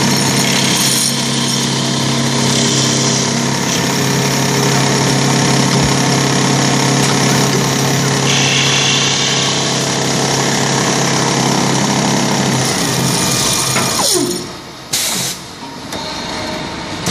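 MC2022 automatic wood-ball lathe running: a steady motor hum under the hiss of the cutter shaving a spinning wooden dowel into a ball. About fourteen seconds in, a whine falls away and the sound drops, with a short loud burst soon after.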